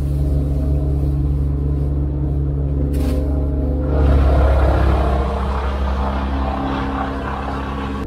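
Diesel engine of a heavy grapple machine running steadily, heard from the operator's cab. About halfway through a louder rushing noise joins it as the machine works under load, then eases off near the end.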